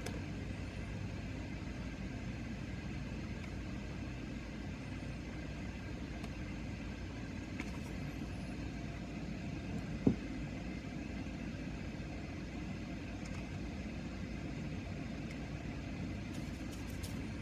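Steady low background rumble with no change in level, and a single faint click about ten seconds in.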